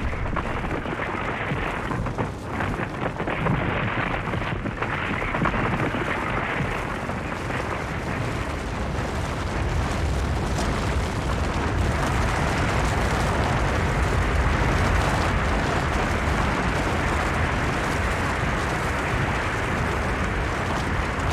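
Avalanche: a continuous rush of sliding snow, a dense rumbling noise with most of its weight in the low end and no separate impacts.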